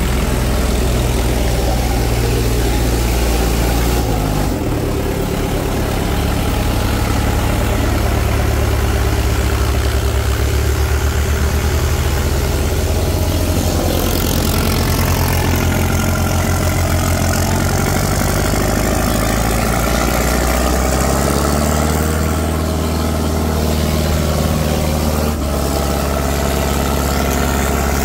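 Tractor diesel engine running steadily, its engine note shifting up and down a few times.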